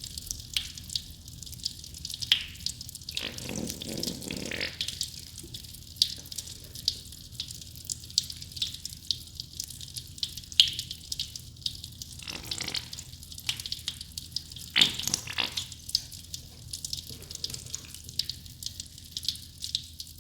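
Sudsy soap mixture fizzing and crackling with fine pops throughout. Three louder wet squelches come as it is pressed or worked, the longest about three seconds in, the others near twelve and fifteen seconds.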